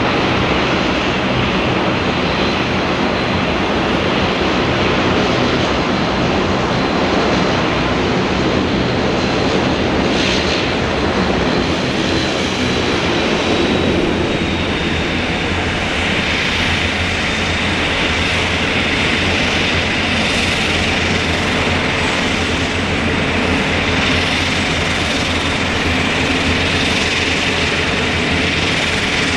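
Boeing 787-8 airliner's jet engines running: a steady rushing noise with a thin high whine that drops slightly about halfway through.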